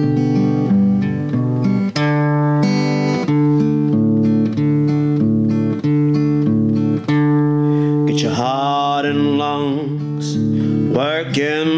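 Background music led by acoustic guitar playing steady chords. A wavering melody line comes in about eight seconds in and again near the end.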